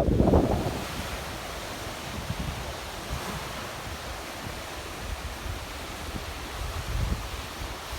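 River water stirred into waves by strong wind, a steady rushing wash, with low wind buffeting on the microphone in gusts. A heavy gust on the microphone dies away within the first second.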